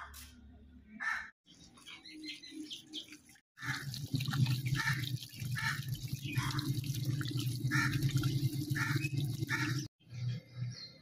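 Crows cawing repeatedly, short harsh calls about once or twice a second. For most of the stretch they sound over a steady rushing noise with a low hum, which drops out abruptly several times.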